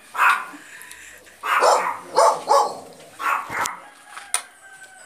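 A dog barking repeatedly, about five short barks, with a single sharp knock about three and a half seconds in.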